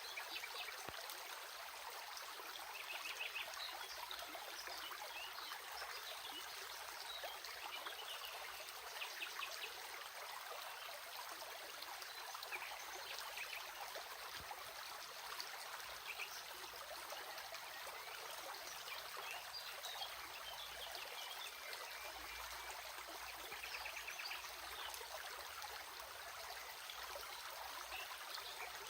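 Small stream trickling and babbling steadily, with a few brief, faint chirps over it here and there.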